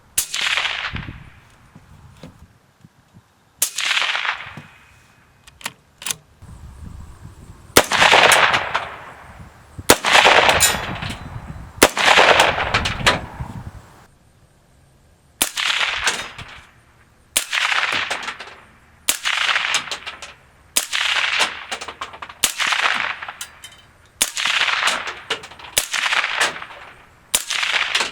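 5.56×45mm NATO rifle fired through a home-built Form 1 solvent-trap suppressor: a steady string of single shots, roughly one every one and a half to two seconds, each a sharp crack with a short echoing tail.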